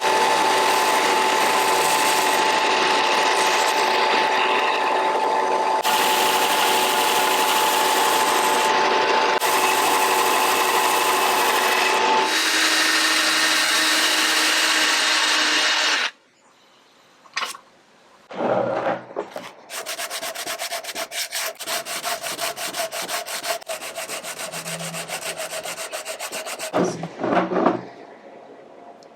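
Wooden knife handle being sanded down with a power sander: a steady running whine with sanding noise for about sixteen seconds, then after a short break a second stretch of rapid, evenly repeating strokes.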